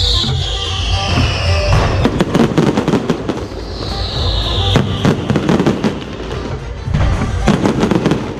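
Aerial fireworks going off in a dense stream of crackles and low booms. Twice, at the start and again about four seconds in, a whistling shell's whistle falls in pitch.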